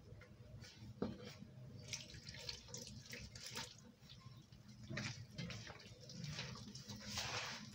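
A hand mixing flour and warm water into a dough in a plastic bowl: faint, irregular wet squishing and rubbing strokes, with a sharper one about a second in.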